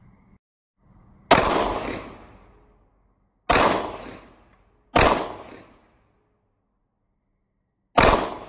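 Four shots from a Sig Sauer M17 9 mm pistol, fired one at a time at uneven intervals: the first about a second in, then roughly two, one and a half and three seconds apart. Each shot trails off in a short echo.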